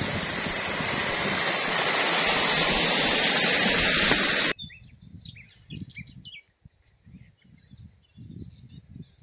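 Hot-spring stream water rushing over rocks, loud and steady and growing a little louder. About four and a half seconds in it cuts off abruptly to a quiet stretch with birds chirping and faint low rumbles.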